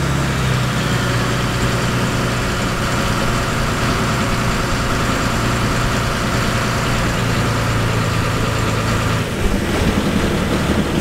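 Fishing boat's engine running steadily, a low hum with wind and water noise over it; about nine seconds in the steady hum drops away and a rougher, noisier rumble takes over.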